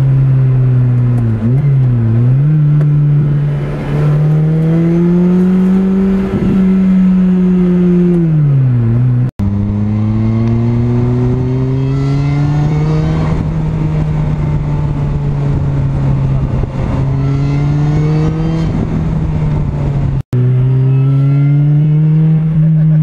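2007 Lotus Exige S's supercharged 1.8-litre Toyota four-cylinder engine accelerating hard, heard from the open cockpit. Its pitch climbs, dips at a gear change about two seconds in, climbs again and settles, then falls as the throttle lifts. The sound drops out for an instant twice, about nine and twenty seconds in, and each time comes back with the engine pulling up again.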